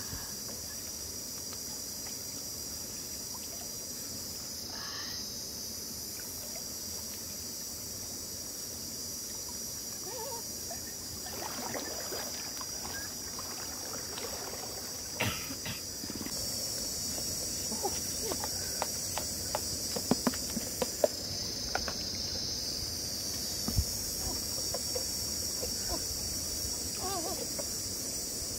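Steady high-pitched insect chorus, with a fire of dry twigs and branches catching and crackling. Its sharp pops come more often through the second half.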